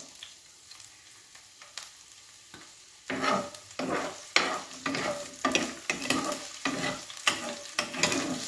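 Garlic and onion sautéing in hot oil in a pan, sizzling faintly at first. From about three seconds in, a spatula stirs and scrapes against the pan in repeated strokes, about two a second.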